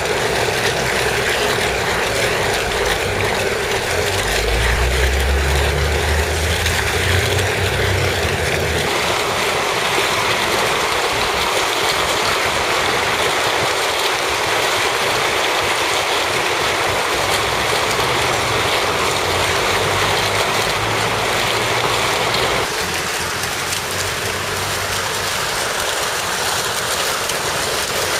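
Fountain water jets shooting up and splashing down into a shallow pool: a steady loud rush of falling water. A low rumble sits underneath for several seconds about four seconds in.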